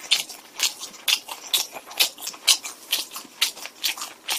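Close-miked chewing of a mouthful of pizza: moist crunching and mouth clicks at about two chews a second.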